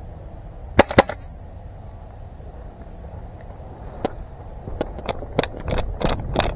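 Two sharp pops a fraction of a second apart about a second in, typical of airsoft gun shots. From about four seconds in comes a quickening run of irregular snaps and clicks over a low rumble.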